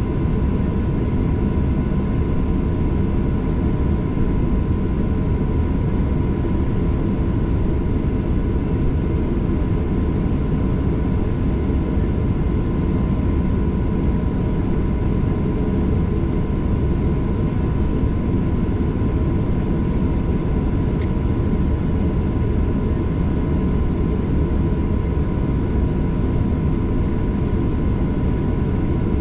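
Steady cabin noise inside a Boeing 737-800: a loud, even low rumble from the aircraft and its engines, with a faint steady whine above it.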